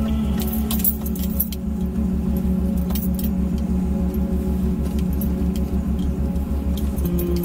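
An off-road vehicle driving along a rough trail: the engine gives a steady, fast low pulsing, with loose things rattling and jingling over it.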